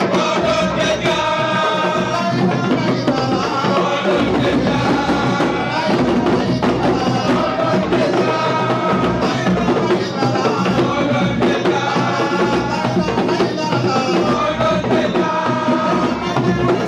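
Music: singing over drums with a steady, driving beat.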